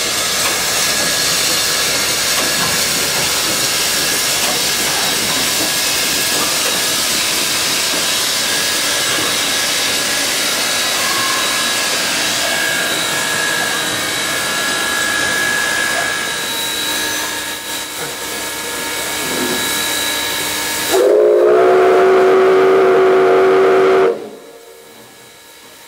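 Steam hissing loudly and steadily from the standing ex-Canadian National 2-8-2 Mikado steam locomotive #3254. Near the end its whistle sounds one long blast of about three seconds, the loudest sound, and then the hiss falls away.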